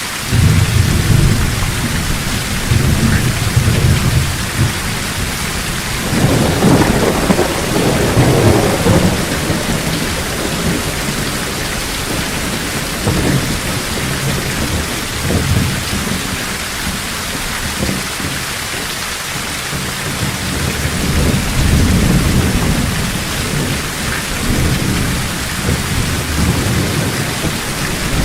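Heavy thunderstorm: steady downpour of rain on a forest, with rolling thunder rumbling in several long swells, the strongest early on and again about a third of the way in.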